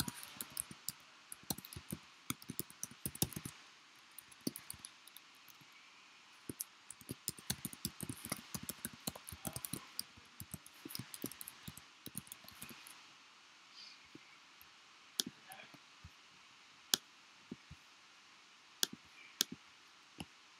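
Typing on a computer keyboard: quick runs of key clicks for the first dozen seconds, then a few separate clicks spaced out near the end.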